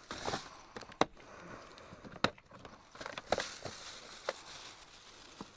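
Scattered sharp clicks and knocks, about half a dozen, with light rustling, as supplies are handled at a plastic toolbox.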